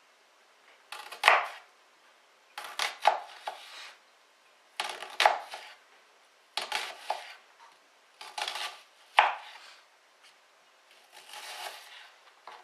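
Kitchen knife slicing an onion on a chopping board, in about six short runs of a few cuts each with brief pauses between.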